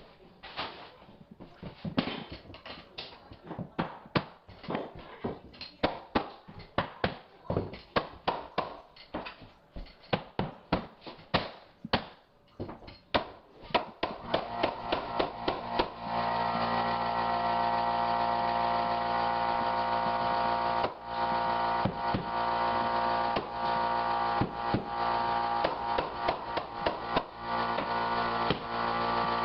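Rapid series of sharp knocks from hardwood flooring boards being tapped and nailed down. From about halfway through, a steady hum with several fixed tones joins in under the continuing knocks.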